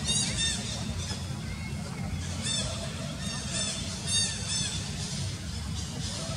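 Young long-tailed macaques squealing while they play-fight: about seven short, high-pitched squeals that rise and fall, two right at the start and five more between about two and a half and five seconds in, over a steady low rumble.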